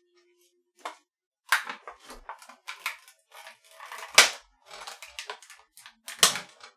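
A run of sharp, irregular clicks and knocks of hard objects, several a second, with the loudest knocks about four seconds in and again near the end.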